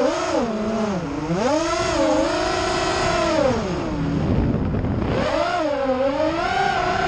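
FPV quadcopter's brushless motors whining, the pitch rising and falling with the throttle. A little past the middle the pitch sinks away for about a second, then climbs back up.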